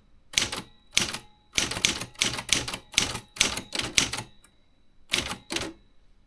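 Remington Quiet-Riter Eleven manual typewriter being typed on: quick runs of keystrokes with short breaks, a pause about four seconds in, then a few more strokes before the typing stops.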